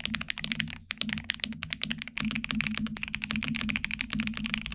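Rapid typing on a Press Play Essential 75HE Hall Effect keyboard, fitted with magnetic switches and a steel plate: a fast, continuous run of keystroke clicks with a brief pause a little under a second in.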